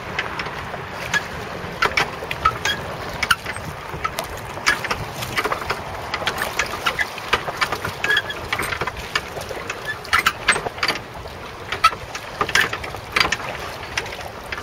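Choppy lake water lapping and slapping against a jetty: a steady wash broken by irregular sharp splashes and slaps.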